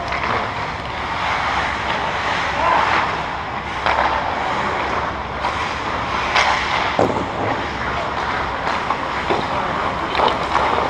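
Ice-hockey rink sound: skate blades scraping and carving on the ice, with a few sharp clacks through it.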